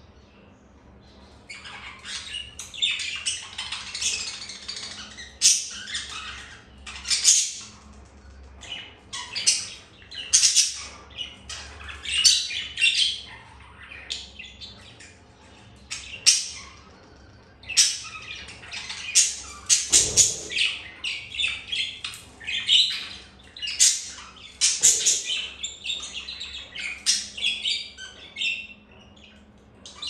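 Budgerigars chattering: fast, high runs of chirps and squawks, starting about a second and a half in and going on in stretches with short pauses.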